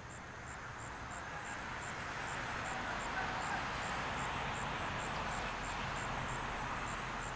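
Outdoor background noise with a murmur of distant voices, growing a little louder over the first few seconds, and a faint high ticking about three times a second.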